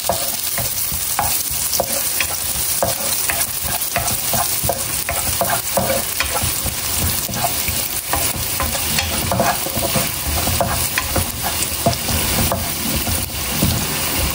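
Minced garlic sizzling in hot oil in a nonstick wok, with a wooden spatula scraping and tapping against the pan in frequent short strokes as it is stirred.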